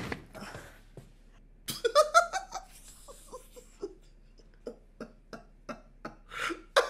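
A man laughing hard: a loud burst of laughter about two seconds in, then a string of short, breathy laughs.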